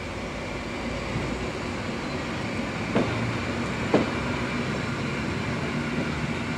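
Polregio electric multiple unit pulling into a station platform: steady running noise with a low hum, and two sharp clacks about a second apart near the middle.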